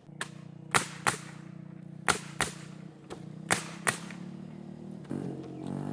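Sharp cracks in pairs, four pairs about a second and a half apart, from 1x4 furring boards being nailed down on the roof, over a steady low hum.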